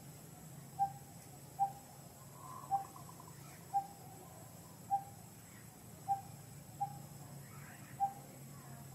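A bird calling: a single short hollow hoot, repeated steadily about once a second, eight times.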